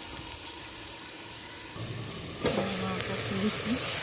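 Chicken and potatoes frying in oil in a kadai, the sizzle muffled under a steel lid. About two and a half seconds in there is a knock as the lid comes off, and the sizzling comes through louder.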